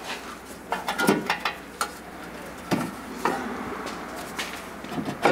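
Scattered knocks and clicks of a sheet-metal fender panel and hand tools being handled as the panel is worked into place in the wheel arch of a 1965 Rolls-Royce Silver Cloud III. The sharpest knocks come about a second in.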